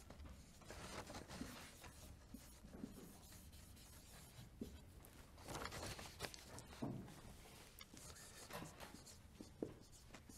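Dry-erase marker writing on a whiteboard: faint, irregular scratching strokes with a few small taps as letters are finished.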